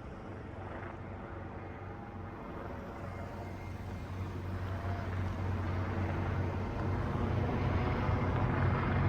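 Engine noise of approaching vehicles, a low steady hum that grows gradually louder.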